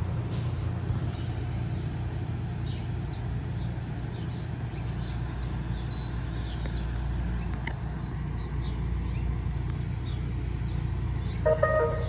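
Steady low rumble and hum of an NJ Transit Arrow III electric multiple-unit train at the station platform, with a few faint bird chirps. A brief tonal sound starts near the end.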